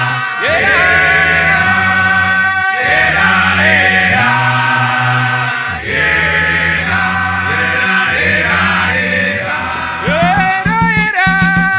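Male vocal group singing in harmony, with deep sustained bass notes under higher voices that glide between pitches. A few short percussive hits come near the end.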